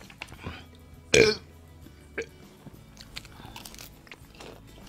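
A man chewing crispy fried chicken, with one loud burp about a second in, followed by a smaller click and soft crunching and mouth sounds.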